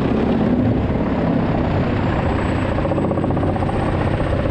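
Truck-mounted Jenz drum wood chipper running steadily: the engine drives the chipping drum and chip-blowing fan through the power take-off. It makes a dense, even mechanical noise with a low hum and a faint high whine.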